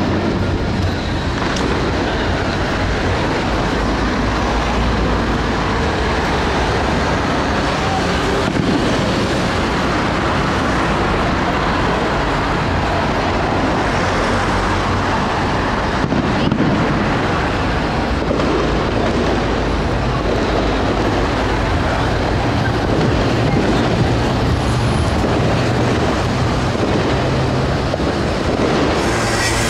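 Steady, loud outdoor street din with a low hum running underneath and no distinct events standing out.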